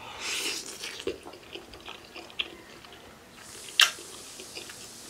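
Spicy instant ramen noodles being eaten: wet slurping and chewing, with small clicks throughout and one sharp click about four seconds in.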